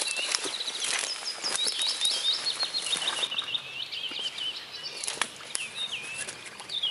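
Woodland songbirds singing, with a quick run of repeated chirps about two to three seconds in, over scattered crackles of footsteps on twigs and leaf litter.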